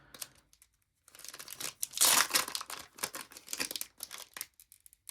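Trading-card pack wrapper being torn open and crinkled, a rapid crackle loudest about two seconds in, after a quiet first second.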